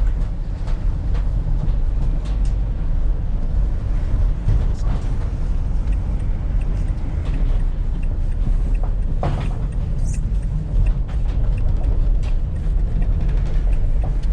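Van being driven, heard from inside the cab: a steady low engine and road rumble, with scattered small knocks and rattles.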